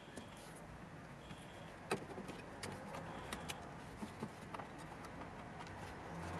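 Faint, scattered clicks and light knocks of hands handling small parts around the boot-lid hydraulic pump in a car's trunk, with one sharper click about two seconds in.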